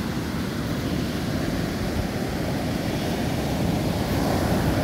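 Wind buffeting the microphone over the wash of surf breaking on a beach: a steady rushing noise that grows a little louder toward the end.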